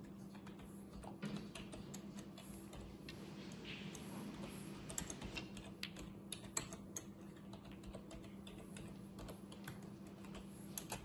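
Typing on a computer keyboard: scattered runs of key clicks, with a faint steady hum underneath.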